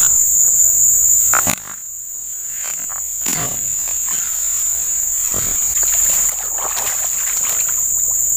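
Steady high-pitched insect chorus from the riverside vegetation, with a few short knocks and scuffs from someone scrambling on the bank.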